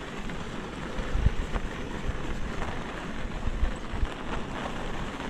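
Wind rushing over the microphone and bicycle tyres rolling on a winter trail while riding, with a couple of deep wind buffets.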